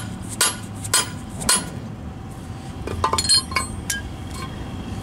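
Mallet striking a steel trailer-hitch bar to drive a ridged shackle bolt into its bracket, four ringing metal strikes about half a second apart. About three seconds in, a quick run of lighter metallic clinks follows as the tools are handled.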